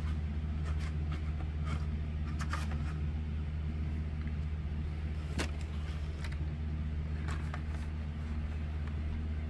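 A steady low hum, with a few faint clicks and taps of plastic blister-card toy packaging being handled. The sharpest click comes about five seconds in.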